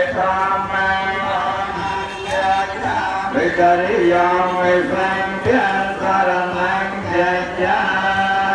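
A Khmer achar (lay Buddhist officiant) chanting a blessing, his voice rising and falling over steadily held notes of traditional Khmer music.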